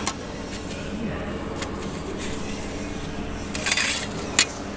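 Thin aluminium parts being handled on a sheet-metal bench: a short scraping rustle about three and a half seconds in, then a sharp metallic clink, over a steady workshop hum.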